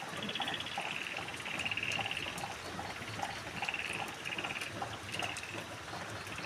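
Repeated short, high-pitched trilling calls from an animal, each about half a second long, coming again and again with short gaps between them.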